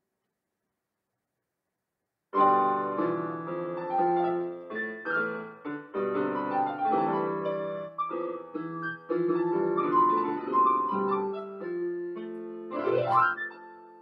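Digital keyboard played with a piano sound: after about two seconds of silence a solo piano piece starts suddenly, many notes sounding together, with a fast upward run about a second before the end.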